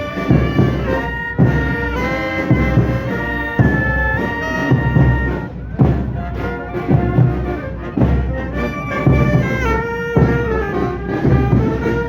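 Fanfarra marching band playing: a brass melody of held notes stepping up and down over a steady beat of drums.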